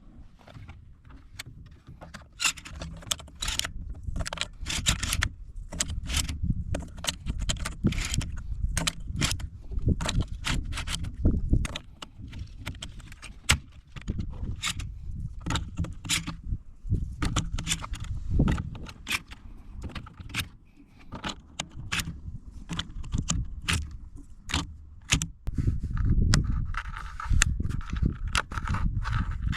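UTS-15 12-gauge pump-action shotgun being handled: a long run of irregular metallic clicks, rattles and scrapes.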